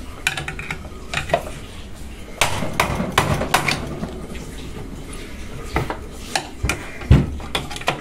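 Mallet tapping a screwdriver against the metal housing of a centrifugal water pump's motor: a series of irregular sharp metallic clinks, one heavier knock about seven seconds in, working the rear of the housing loose for disassembly.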